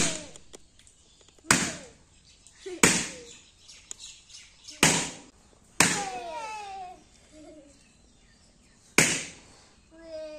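Latex party balloons bursting one after another: six sharp pops, irregularly spaced.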